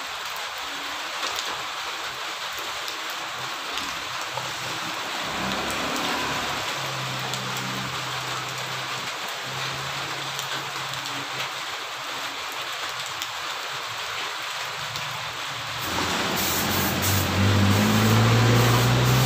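Heavy rain hissing steadily. A low motor hum comes in about seven seconds in and grows louder near the end.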